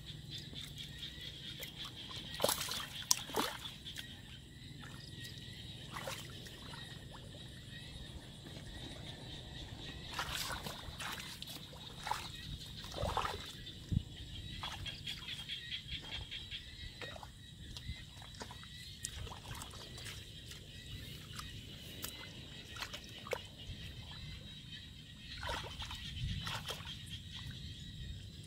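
Water sloshing and splashing irregularly as hands and bare feet stir and grope through shallow muddy paddy water, with a steady high-pitched chorus in the background.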